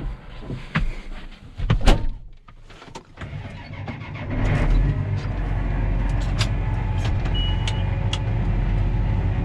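A few clicks and knocks, then about four seconds in a vehicle engine comes up and runs steadily.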